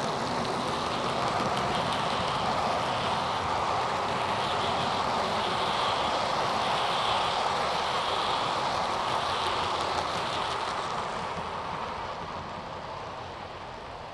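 OO gauge model Class 50 diesel locomotive running along ballasted track past the microphone: a steady whirr of motor and wheels on the rails that fades away near the end. There is no resonant drumming through the baseboard, the track being laid on foam underlay.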